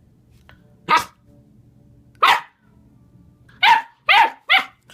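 Dog barking: five short, sharp barks, two spaced well apart and then three in quick succession near the end.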